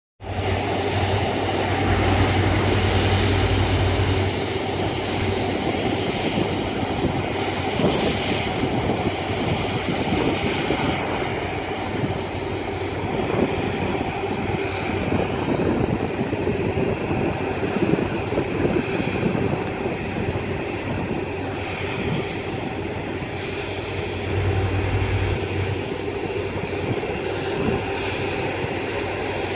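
Airbus A330's twin jet engines running at taxi power as the airliner taxis toward the runway: a steady whine over a broad rush of engine noise. Low rumbles swell in briefly near the start and again about 24 seconds in.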